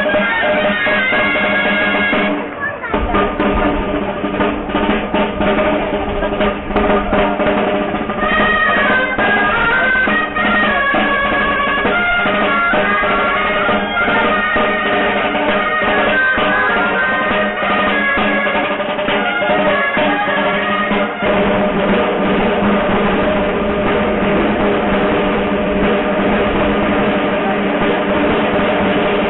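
Dolçaines (Valencian shawms) playing a folk melody over a side drum beating rolls. The tune drops out for a few seconds near the start, leaving mostly drumming, then comes back in.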